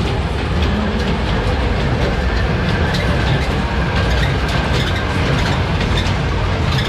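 Small fairground children's train ride rolling past on its oval steel track: a steady rumble from the cars, with irregular clicks of the wheels over the rail joints.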